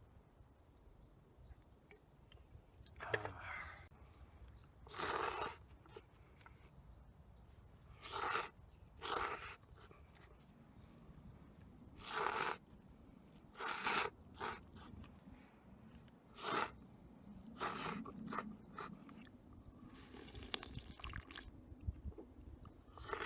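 Slurping instant miso ramen noodles: about a dozen short, loud slurps at irregular intervals. A small bird chirps faintly and repeatedly in the first half.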